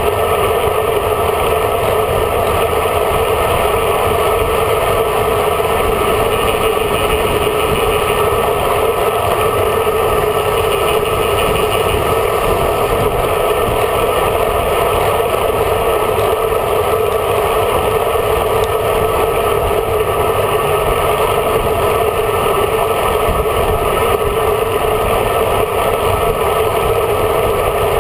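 Steady rush of wind and road noise over the microphone of a camera mounted on a road bike moving at speed.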